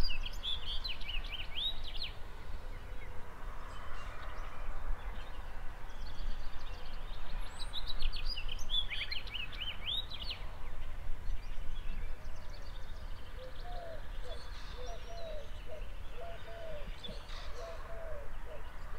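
Birds singing outdoors: bursts of quick high chirping song, loudest at the start and again around eight to ten seconds in. Through the last few seconds a lower call repeats about twice a second, over a steady low rumble.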